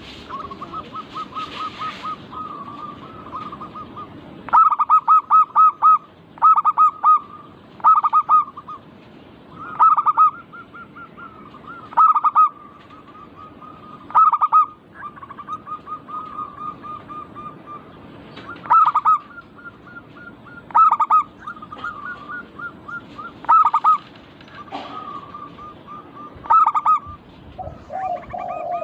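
Zebra doves (perkutut) cooing. One bird repeats a loud phrase of quick staccato coos about every two seconds, and fainter doves coo continuously behind it.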